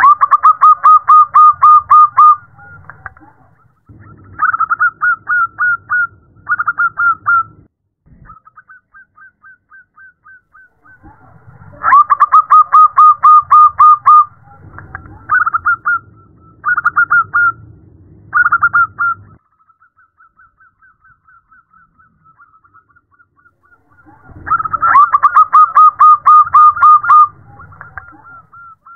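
Zebra dove (perkutut) calling: runs of quick, staccato cooing notes, loud bouts about every twelve seconds with shorter phrases and faint trailing note trains between. The uploader presents it as a female's call to draw a male.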